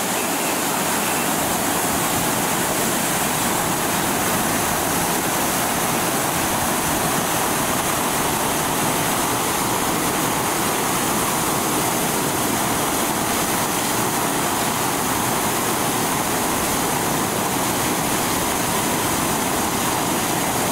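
High-pressure water gushing from a sheared fire hydrant, a steady rushing hiss.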